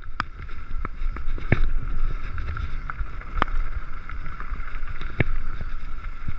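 Mountain bike rolling downhill over a rough gravel track: wind rumbling on the helmet camera's microphone, with scattered sharp knocks and rattles from the bike over the bumps.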